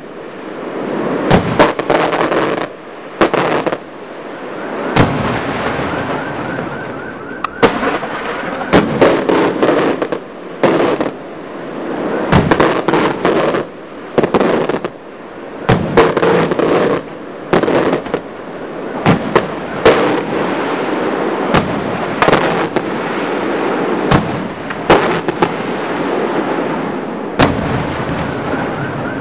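Daylight fireworks going off: repeated sharp bangs of aerial shells at irregular intervals, several close together at times, over a continuous crackle and fizz.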